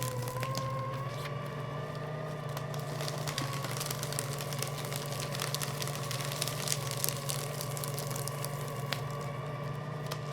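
Electric paper shredder running steadily: the motor hums at a constant, slightly wavering pitch while the cutters crunch through paper with a dense, irregular crackle.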